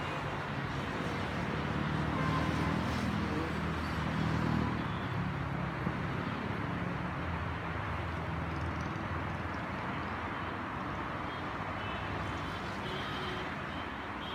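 Steady multi-lane highway traffic noise from passing cars and trucks, with a louder low rumble swelling between about two and five seconds in.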